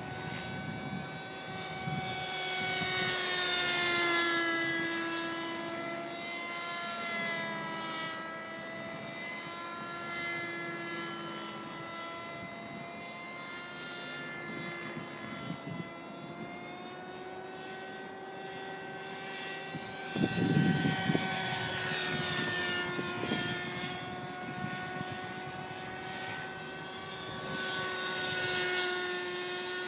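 High-pitched whine of a petrol-engined model helicopter in flight, its engine and rotor pitch wavering slowly up and down as it manoeuvres. About twenty seconds in, a short low rumble is louder than the whine.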